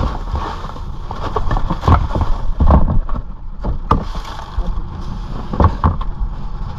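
Crushed ice sliding and clattering out of a plastic fish crate into a boat's deck ice hold, with irregular knocks of the crate against the hatch rim. A steady low rumble lies underneath.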